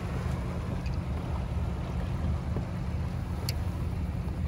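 Wind rumbling on the microphone over open water, steady throughout, with one sharp click about three and a half seconds in.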